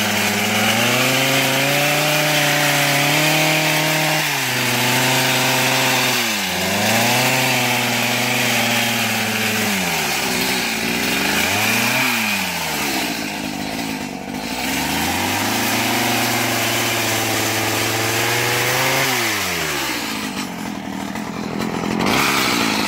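Stihl HS 45 hedge trimmer's two-stroke engine running at high revs while its blades cut through holly. The revs drop and climb back several times as the throttle is eased and squeezed again.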